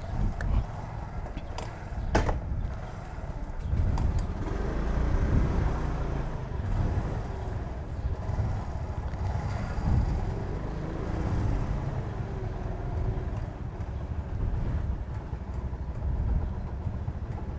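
Motorcycle riding noise in traffic: a steady low rumble of engine and road that swells and eases, with a sharp click about two seconds in.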